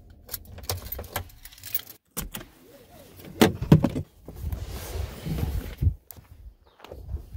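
Keys jangling in a vehicle's ignition as the engine is switched off, followed by a string of clicks and a few heavy knocks about three and a half seconds in as the driver's door is opened.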